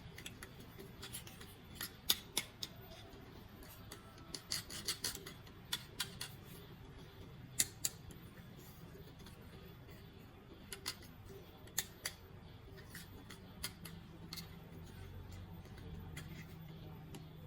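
Toy packaging being opened and handled: irregular sharp clicks and snips, some single and some in quick runs of three or four, over a faint low hum.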